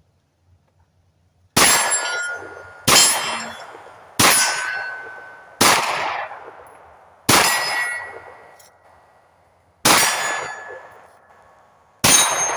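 Seven 9mm pistol shots fired from the Stealth Arms Platypus, each one ringing a steel target. Each ring fades out over about a second, and the shots come one to two and a half seconds apart.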